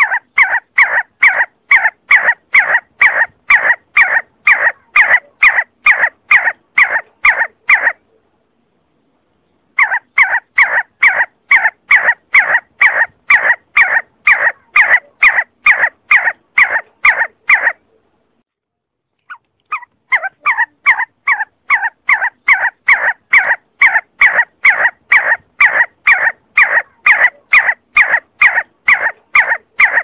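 See-see partridge calling: a fast, even series of short loud notes, about three a second, in three long runs broken twice by a pause of about two seconds.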